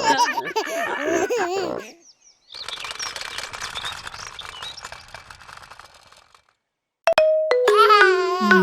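Children's cartoon soundtrack: wavering, voice-like sounds for about two seconds, then a soft noisy wash that fades away, a brief silence, and a chiming musical jingle starting near the end.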